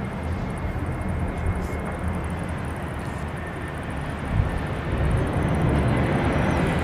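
Boeing 737's jet engines on final approach: a steady rumbling roar with a faint high whine, growing louder about five seconds in as the airliner comes closer.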